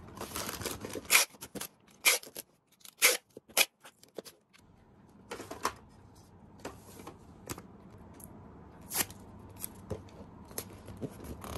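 Parcel packing: plastic-bagged squishy toys crinkling in a cardboard box, then a few sharp clicks and taps of cardboard and tape as the box is closed, followed by lighter scattered taps as the taped box is handled and a sticker is peeled and pressed on.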